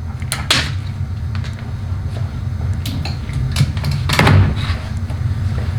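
Knocks and clatter of parts and tools being moved around on a workbench, with a few sharp clicks and the loudest knock about four seconds in, over a steady low hum.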